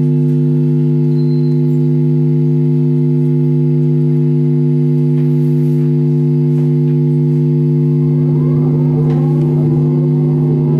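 Loud, steady electronic drone music: a low hum with a stack of overtones held without change. About eight seconds in, swirling tones that rise and fall in pitch join over it, with a rumble underneath.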